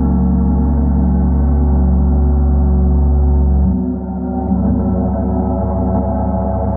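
Paiste gongs being played, ringing as a steady wash of many held tones over a deep low hum. A little under four seconds in, the deep hum drops away and the sound thins, the upper tones ringing on.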